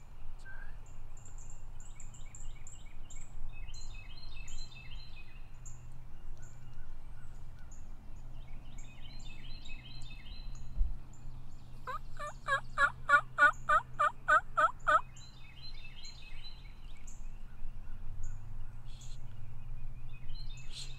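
Eastern wild turkey yelping: a loud series of about eleven evenly spaced yelps lasting about three seconds, starting past the middle. Songbirds chirp faintly throughout.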